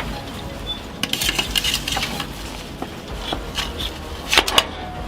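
Metal clinking and clattering from an artillery crew working the gun between the sight setting and the firing command, with a low rumble under it and two louder knocks near the end.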